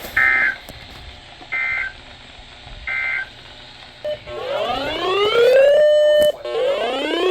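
Emergency alert broadcast audio: three short two-tone warbling data bursts, the EAS digital end-of-message code, about a second and a half apart. About four seconds in, a siren-style alert tone starts: it rises in pitch, holds, cuts off sharply, and starts rising again.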